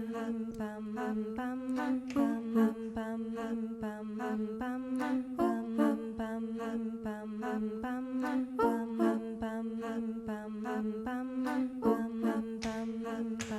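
Mandolin playing quick, evenly repeated picked notes over a steady looped drone, with no singing.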